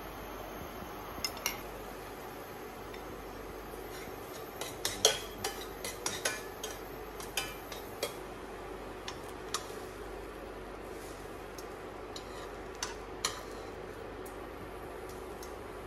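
Metal spoon and utensil clinking and scraping against a ceramic-coated frying pan while pancakes are shaped and flipped. Scattered sharp clinks, busiest around five to six seconds in, over a steady hiss.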